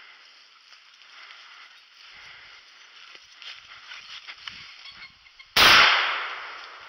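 Footsteps through dry leaf litter, then near the end a single 16-gauge shotgun shot, loud and sudden, dying away over about a second.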